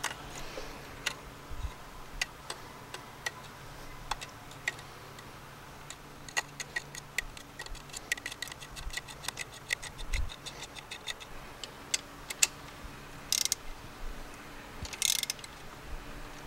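Hand ratchet clicking while a spark plug is worked on a BMW N54 engine. Scattered single clicks give way in the middle to a quick, even run of about eight clicks a second. Two short noisy bursts follow near the end.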